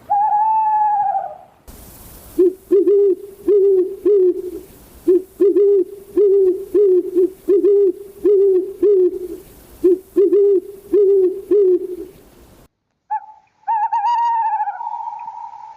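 Owl calling: a longer, wavering higher call at the start, then a rapid series of short low hoots at about two a second, then another long wavering higher call near the end. The background hiss starts and stops abruptly between them, as if separate recordings were spliced together.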